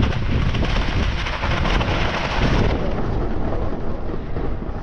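Heavy rain with wind buffeting the microphone: a steady rushing noise over a low rumble. The high hiss thins about two and a half seconds in.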